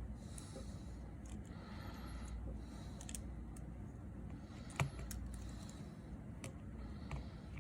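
Scattered small clicks and taps from tools and tiny phone parts being handled, with one sharper click a little under five seconds in, over a steady low hum.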